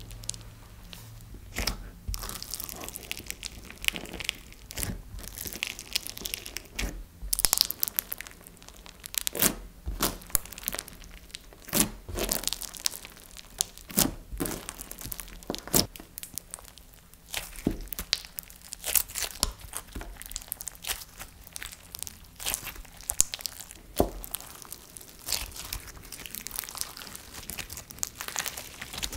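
Slushee slime packed with clear beads and foam balls being poked in its jar and then pressed and squeezed by hand: an irregular, crunchy crackling and clicking of the beads.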